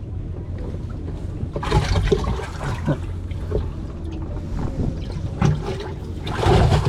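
Water sloshing and splashing, louder about two seconds in and again near the end, over a steady low rumble.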